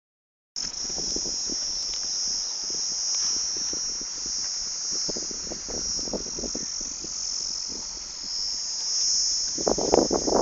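Steady high-pitched insect chorus, a continuous shrill buzz, with scattered faint knocks underneath and a louder burst of rustling and knocks near the end.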